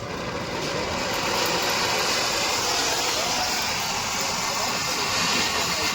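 Suzuki Alto 800's three-cylinder engine running, with a steady rushing noise that swells over the first second or so.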